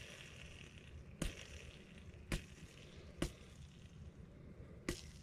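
Five light, sharp clicks, spread about a second apart, over a low hum of room noise, from a chainsaw crankshaft ball bearing being handled and turned by hand to feel how smoothly it runs.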